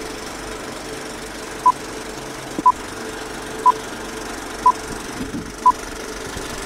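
Film countdown leader effect: a steady whirr and hiss of an old film projector, with a short high beep once a second as each number counts down, beginning about a second and a half in.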